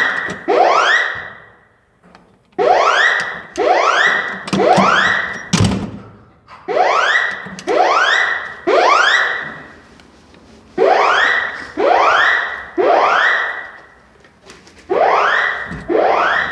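Building fire-evacuation alarm sounding through the PA: rising whooping sweep tones in groups of four, a new group about every four seconds.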